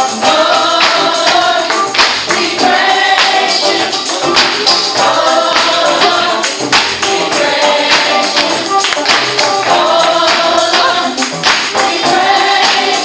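A youth choir singing a gospel praise song, with a tambourine shaken and struck in a steady beat.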